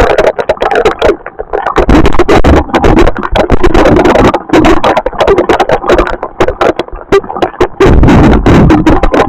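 Thunderstorm noise: strong wind gusting and buffeting the microphone in loud rumbling surges, with a dense, irregular crackle of rain or debris hits.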